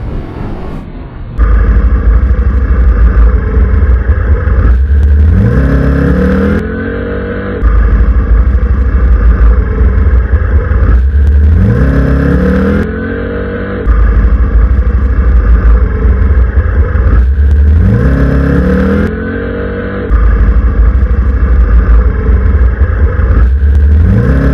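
Motorcycle engine running loud and rough, revving up with a rising pitch four times, about every six seconds. After each rise it drops back briefly quieter, and the cycle repeats almost identically, like a loop.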